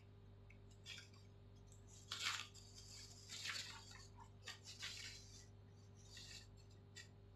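Sheets of paper rustling and sliding as they are shuffled and laid flat, in several short bursts over a steady low hum.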